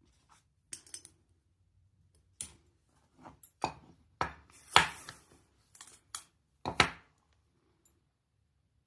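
Irregular small clicks, taps and short scrapes of objects being handled and set down on a table, about a dozen in all, the loudest about five seconds in.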